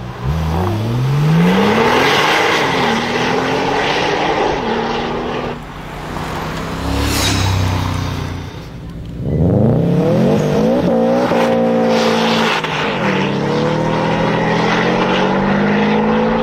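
Sports car engines accelerating hard, their pitch climbing, dropping at gear changes and climbing again several times. A brief high sweep comes about seven seconds in.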